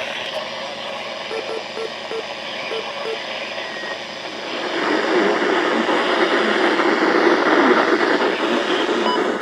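Radio static hiss from a receiver tuned to a weak NOAA Weather Radio signal. The hiss turns louder and coarser about four and a half seconds in.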